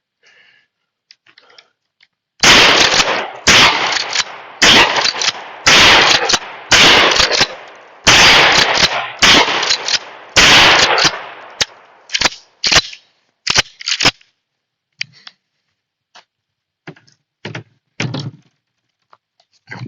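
Winchester 1300 Defender 12-gauge pump-action shotgun firing a string of loud shots of mixed birdshot and buckshot, about one a second, each with a ringing tail. Fainter sharp reports follow, then a few quiet clicks near the end.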